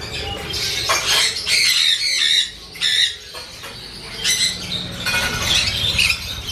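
Caged small parrots squawking and chattering, many harsh high calls overlapping, thinning out briefly about halfway through.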